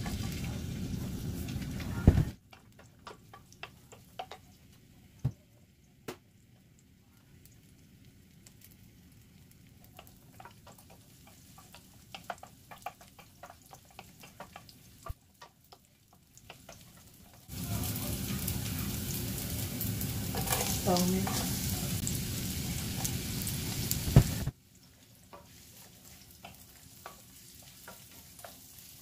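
Garlic frying in hot oil in a pan, sizzling loudly at the start and again for several seconds past the middle, with quieter stretches of light clicks and scrapes of a utensil between.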